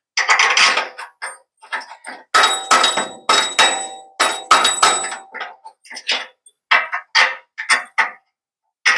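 Rapid, irregular hammer blows on a steel suspension part of a Ford Econoline van lift kit, knocking the parts into line so a bolt will go through. Many strikes leave a brief high metallic ring, and the blows stop a little before the end.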